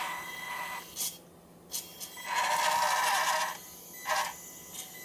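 Kyosho Mini-Z 4x4 Jimny radio-controlled crawler's small electric motor and gearbox whining in stop-start bursts as the car is driven down off an obstacle, the longest burst over a second.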